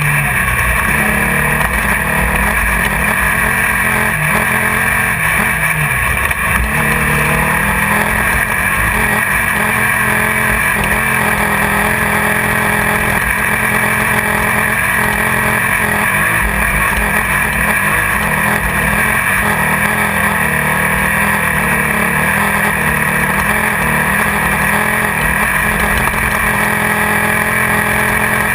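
Class 1600 off-road race car's air-cooled Volkswagen-based 1600 cc engine running hard at near-constant speed, heard loud from inside the car, with the engine pitch dipping briefly about five seconds in.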